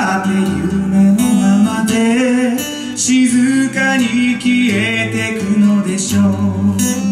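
Strummed acoustic guitar accompanying a man singing into a microphone, in a live amplified performance.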